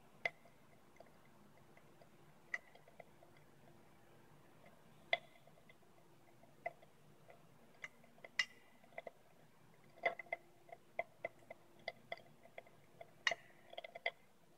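Sharp little pops and crackles from the 'storm in a test tube' reaction: green manganese heptoxide, formed where potassium permanganate meets concentrated sulfuric acid, violently oxidises the ethanol layered above it in tiny flashes. The pops come singly and far apart at first, then much more often from about ten seconds in.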